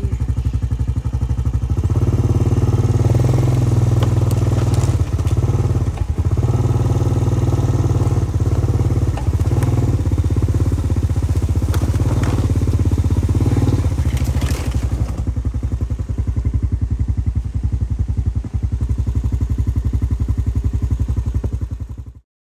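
Vehicle engine running steadily with a low, even pulsing, with scattered knocks and rattles over it; it stops suddenly near the end.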